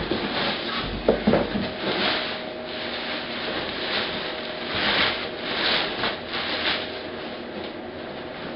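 Plastic wrapping rustling and crinkling and a cardboard box scraping as a heavy welder is worked out of its packaging, with a couple of sharp knocks about a second in.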